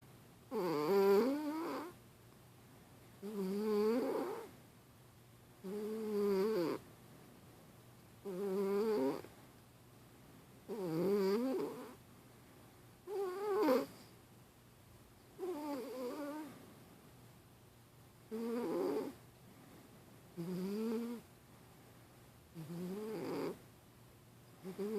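Domestic cat snoring in its sleep. Each pitched, wavering snore lasts about a second and comes roughly every two and a half seconds, with quiet between breaths.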